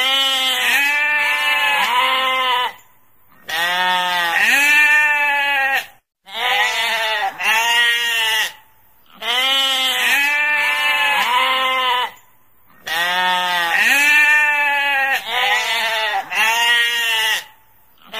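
Sheep bleating over and over: runs of several wavering bleats broken by short pauses, repeating about every three seconds.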